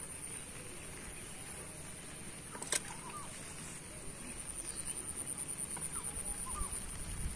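Outdoor background sound: a steady high-pitched whine over a low rumble, with a few faint short calls and one sharp click nearly three seconds in.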